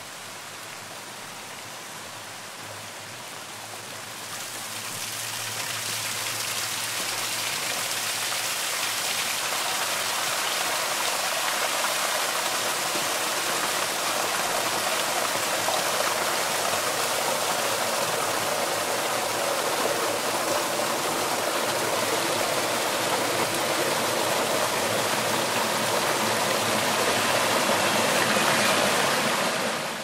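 Small rainforest creek surging with stormwater runoff after a light shower: a faint steady wash swells about four seconds in into a rush of water cascading over rocks and tree roots, growing a little louder toward the end.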